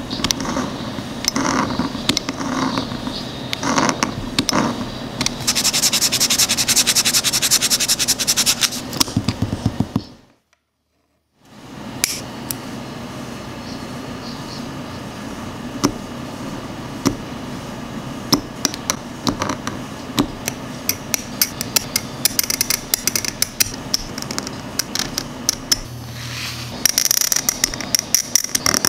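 Hobby knife blade scraping and carving a small plastic Gunpla part: fine scratching strokes and sharp little clicks, with a stretch of fast, dense scraping about six seconds in. The sound drops out for a second or so about ten seconds in.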